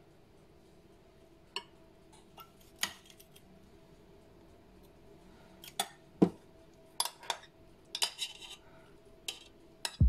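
Metal spoon and fork clinking and scraping against glass dishes while tomato sauce is spooned out, in short scattered taps that come more often in the second half, over a faint steady hum.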